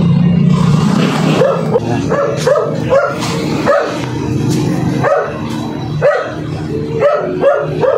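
A dog barking repeatedly in short, high yips, about two a second.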